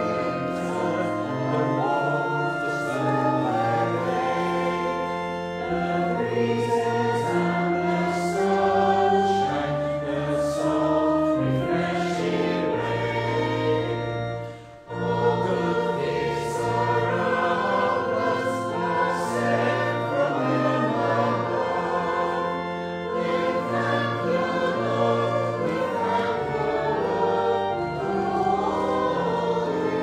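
A choir singing a hymn with organ accompaniment, the organ's bass notes held and stepping from chord to chord. The music breaks off briefly about halfway through, then carries on.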